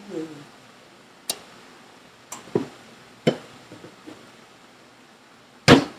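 The last sung word fades out, then a few scattered sharp knocks and clicks of kitchen utensils and cookware, the loudest one near the end.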